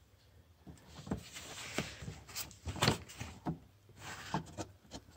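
A hard plastic trim panel in a car's engine bay being lifted and worked by hand, shifting against its plastic clips, with a string of irregular knocks and clicks and some rustling.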